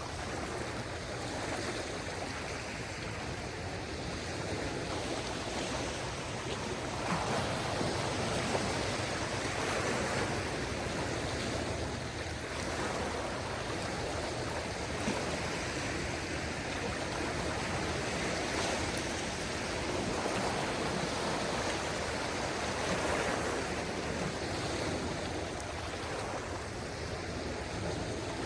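Small waves on a calm sea washing gently onto the shore, a steady rush that swells and eases every few seconds.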